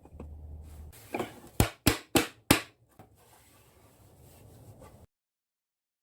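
Hammer striking wood: a softer knock about a second in, then four quick sharp blows, a little over three a second. Then the sound cuts off to silence.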